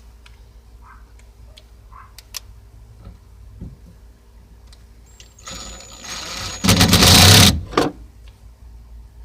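A small electric motor runs in a short burst about five and a half seconds in, growing much louder for about a second before it stops, with a last short burst just after.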